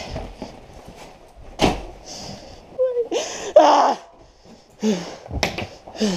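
Household things being thrown and knocked about in a cluttered room: a few sharp thumps and bangs, with rustling in between and a quick cluster of knocks near the end.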